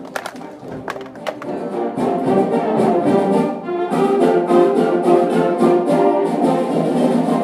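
Orchestral background music led by brass, swelling louder about two seconds in. A few sharp clicks sound over the quieter start.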